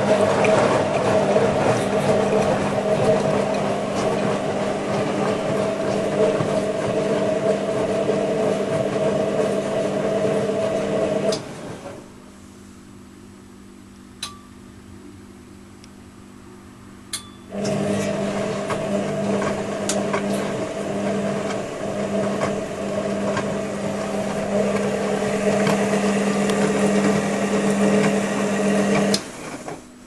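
Front-loading washing machine drum tumbling, its motor running with a steady hum as it turns the wet load, for about eleven seconds. It stops for a pause of about six seconds in which the controller's relays click twice, then tumbles again until near the end. These are the long wash tumbles that mix in the detergent at the start of a 40 °C cottons programme.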